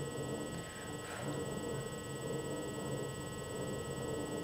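Quiet room tone: a steady hiss with a faint, thin high electrical whine, and a soft faint brush of sound about a second in.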